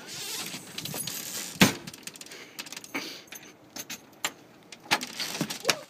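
A bunch of keys jangling and scraping at a door lock, fumbling to find the keyhole in the dark, with scattered small clicks and one sharper click about a second and a half in.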